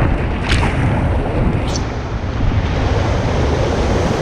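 Whitewater rushing and splashing around a raft in a rapid, with wind buffeting the microphone. Two short splashes stand out, about half a second and just under two seconds in.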